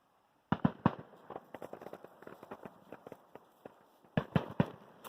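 Firecrackers going off in rapid strings: a burst of sharp pops about half a second in that trails off into a run of smaller crackles, then a second cluster of loud pops near the end.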